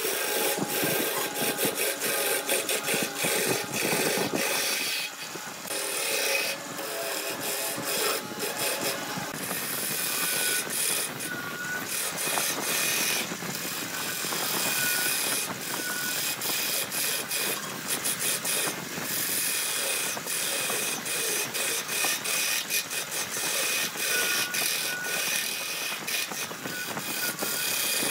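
Wood being worked on a wood lathe: a continuous scraping, rasping noise with many small clicks, as a tool or abrasive bears on the turning wood.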